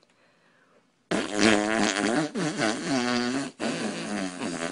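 A baby blowing a loud raspberry, buzzing its lips while voicing, with a wavering pitch. It starts about a second in, breaks off briefly, and goes on again.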